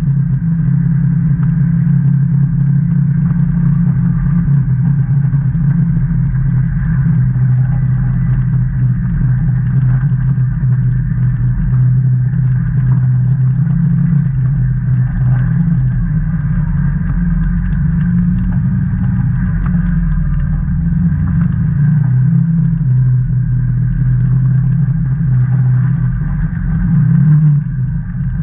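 Can-Am Maverick Trail 800 side-by-side's Rotax 800 V-twin engine running steadily as it drives along a dirt trail, with a brief swell in engine sound near the end.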